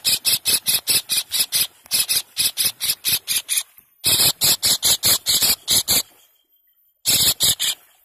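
Kingfisher (kahkeh) calling in a rapid, harsh rattle of repeated notes, about five a second, in two long bouts and a short third one near the end.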